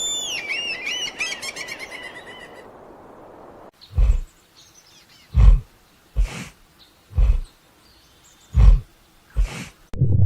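A bird's rapid run of high chirps over background hiss. After a cut, a large animal gives a series of about six deep, short grunting calls spaced about a second apart.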